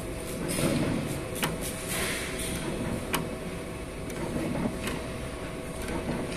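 Desktop soldering robot running, its motorised axes whirring as the soldering head moves between joints over a steady machine hum, with three sharp clicks.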